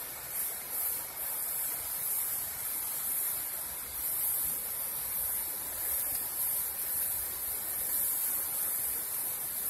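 Waterfall: falling water rushing steadily, a continuous hiss that doesn't let up.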